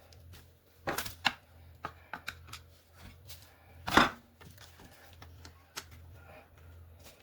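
Scattered clicks and knocks of carpet cleaner parts being handled and fitted by hand as the new belt and drive shaft go in. Two sharp clicks come about a second in and a louder knock about four seconds in, over a faint steady low hum.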